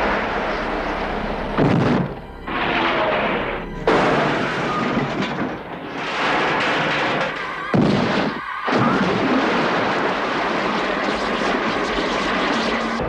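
Action-film soundtrack: heavy crashes and impacts mixed with music, with the sharpest hits about two, four and eight seconds in.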